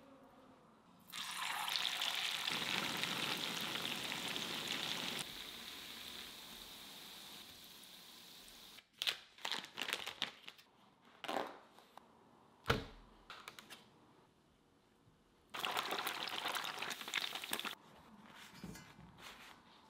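Food going into hot oil and sizzling, starting suddenly about a second in, loud for a few seconds and then settling to a lower fry. Plastic packaging crinkles with a few clicks and one sharp knock, and a second short burst of sizzling comes near the end.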